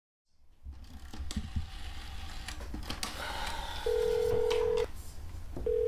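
Rotary telephone in use: clicks and rattles of the handset and dial, over a low hum. Then two steady one-second beeps of the line tone sound from the earpiece, a short gap apart.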